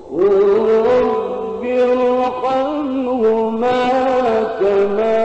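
Male Quran reciter's voice chanting in the ornamented mujawwad style, coming in loud just after a brief pause and drawing out long held notes with melismatic turns that step up and down in pitch.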